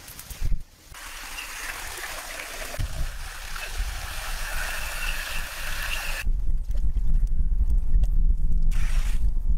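Water running over rock, a steady hiss that cuts off suddenly about six seconds in, followed by a low rumble.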